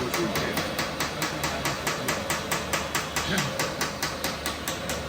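An RC excavator's hydraulic breaker hammer knocking steadily and rapidly, about five blows a second, over a low hum from the model's hydraulics.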